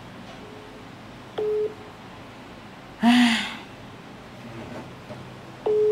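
Telephone call tone heard through a phone's speaker: a single steady tone, first as a short beep a bit over a second in, then held for about a second near the end. About three seconds in comes a brief loud sound like a person's voice.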